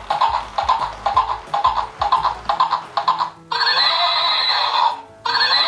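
Battery-powered walking plush pony toy playing upbeat electronic children's music through its built-in speaker, with a quick pulsing beat, then a recorded horse neigh about three and a half seconds in.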